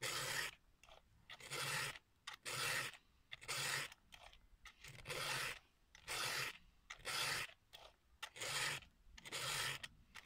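A round file rasping across a chainsaw chain's cutter teeth as the chain is sharpened by hand. There are separate strokes about once a second, with short quiet pauses between them.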